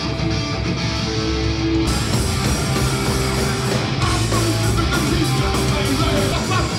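Live punk rock band playing loud, with electric guitar and drums, heard from within the crowd. The sound jumps abruptly about two seconds in and again about four seconds in, where clips are spliced together.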